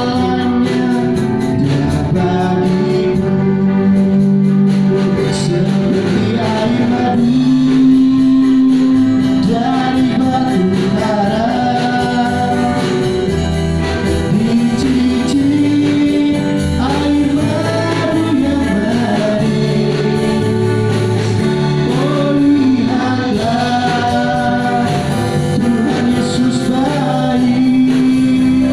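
Gospel worship song, sung by a vocal group in harmony over band accompaniment, with long held notes.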